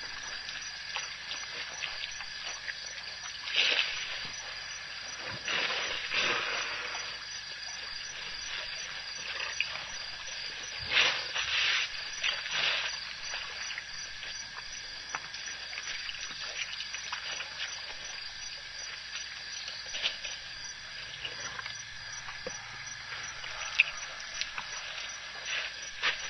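Night insects calling in a steady high drone, with a few short noisy bursts on top, the biggest about four seconds, six seconds and eleven to thirteen seconds in.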